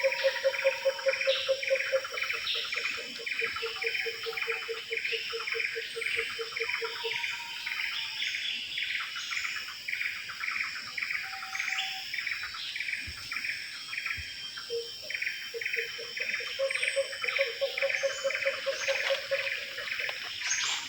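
Tropical forest chorus of birds and insects: a steady high insect drone under a call repeated about two or three times a second. A rapid low trill runs through the first third and returns near the end, with a few short whistles between.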